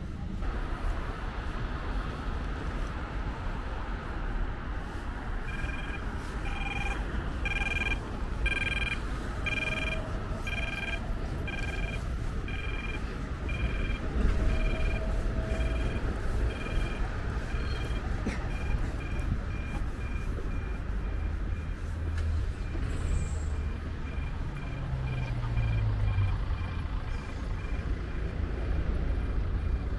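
Audible pedestrian crossing signal beeping, a little faster than once a second and then switching about two-thirds of the way through to quicker, fainter beeps, over a steady rumble of city traffic.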